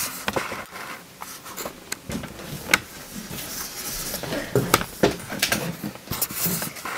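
Handling noise from a handheld camera: scattered sharp clicks and light knocks, the loudest a little under three seconds in, with faint rustling between them.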